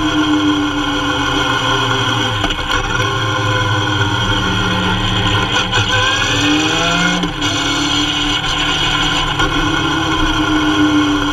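Kawasaki Z750 motorcycle's inline-four engine running while riding, its pitch rising a little past halfway and then dropping suddenly.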